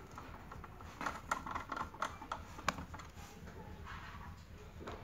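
Screwdriver driving screws into a sandwich maker's heating-plate assembly: light, irregular clicks and scrapes of the tool on the screw heads, most of them in the first three seconds.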